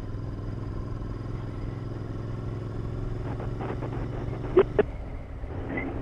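Royal Enfield Interceptor 650's parallel-twin engine running steadily at a cruise, a low even drone. Two brief sharp blips come a little past halfway.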